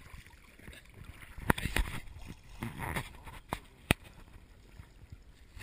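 River water splashing and lapping around a swimmer with the camera at the waterline, broken by several sharp splash clicks, the loudest about one and a half and four seconds in.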